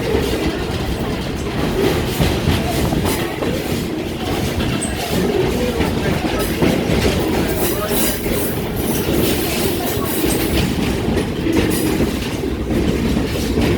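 Excursion train's passenger car rolling along the track: a steady rumble of steel wheels on rail, with scattered clicks from the rail joints.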